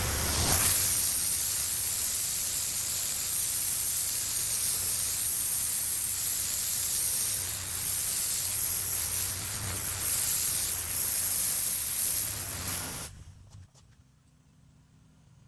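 Pressure washer spray hissing steadily against concrete, with a low hum beneath, cutting off sharply about thirteen seconds in.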